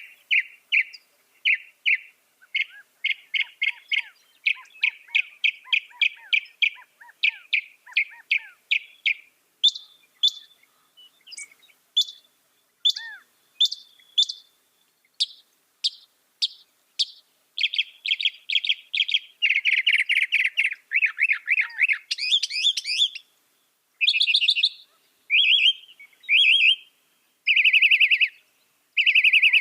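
Mockingbird singing: a long run of short phrases, each note repeated rapidly several times before switching to a different phrase, with the later phrases louder and buzzier.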